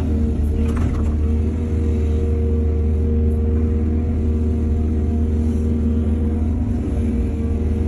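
Heavy diesel engine of an excavator running steadily under load, a deep rumble with a steady pitch, with a brief clatter about a second in.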